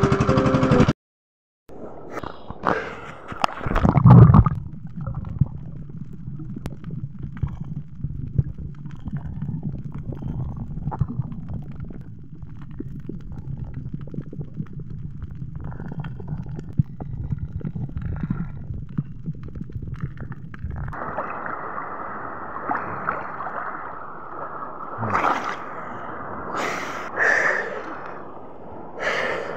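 Water heard through a submerged camera: a muffled low rumble with gurgling from the sea surging over the bottom in heavy swell. At the start, the boat's small engine runs for about a second and cuts off. From about two-thirds in, the camera is at the surface, with steady water noise and several splashes near the end.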